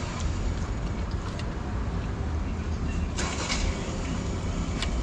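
Steady street traffic noise, a low rumble, with a short hiss about three seconds in.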